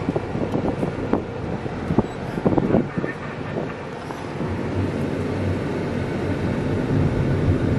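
Road and engine noise inside a moving passenger van, with a few sharp knocks and rattles in the first three seconds. A low rumble grows louder near the end.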